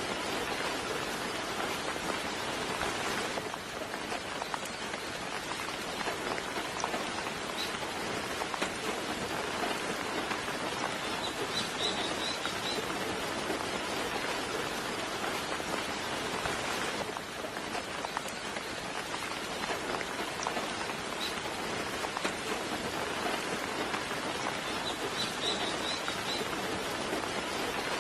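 Steady soft rain falling, with a few faint, short, high bird chirps, in brief clusters about halfway through and again near the end.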